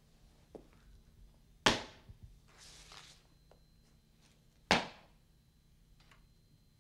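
Two loud, sharp knocks about three seconds apart, each dying away with a short ringing tail, with a brief hiss between them and a few faint ticks.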